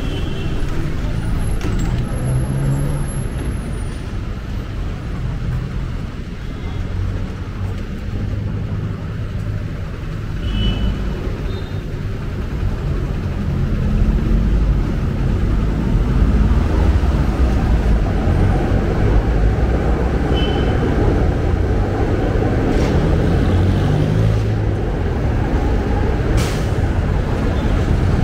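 Busy city street traffic: vehicle engines running steadily, getting louder about halfway through, with a few short high squeaks.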